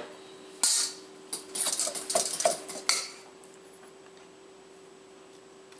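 Utensils clinking and scraping against a metal mixing bowl while water is worked into flour for noodle dough, with several knocks in the first three seconds and then quiet. A faint steady hum runs underneath.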